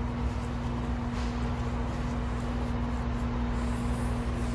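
Steady machine hum holding one constant tone over a low rumble.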